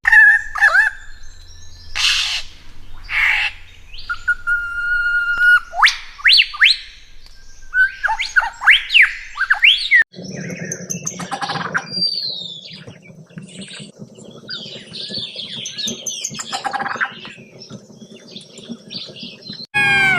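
Birds calling: short whistled notes and quick rising and falling chirps in irregular bursts. About halfway through the recording changes, and a low steady hum runs under further calls.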